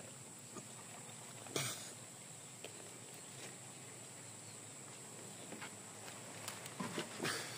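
Quiet handling of a plastic bottle and jug: one sharp click about a second and a half in, a few small ticks, and a cluster of light knocks near the end, over a steady faint outdoor hiss.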